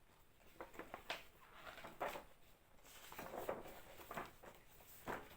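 Glossy paper pages of a pattern booklet being turned and handled: soft rustles and light clicks, about one every second.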